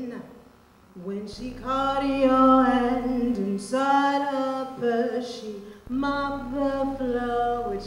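A woman singing unaccompanied into a microphone: after a short pause, three long phrases of held notes.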